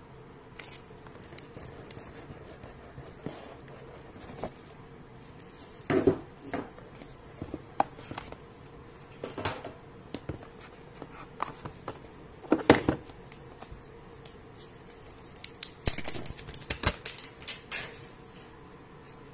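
Handling noise from a smartphone's retail box being opened: the box, its lid and the inner tray knock, scrape and click. The sounds come at irregular moments, loudest about six seconds in and again just past the middle, with a run of clicks near the end.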